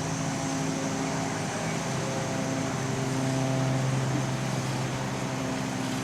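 Chairlift running: a steady mechanical hum with a low tone that grows stronger for a few seconds in the middle.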